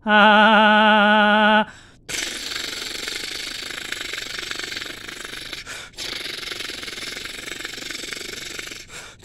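A person imitating the figure's gatling gun: a robotic-sounding held vocal tone with wavering pitch for about a second and a half, then a long, rapid mouthed machine-gun rattle, broken twice by short pauses.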